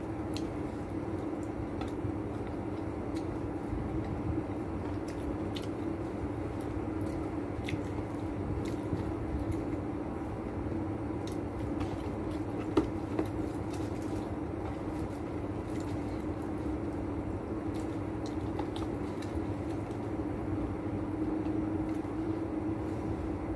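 Someone eating fried chicken by hand: faint wet chewing and small clicks of fingers and the paper box, over a steady machine hum. There is one sharper click about 13 seconds in.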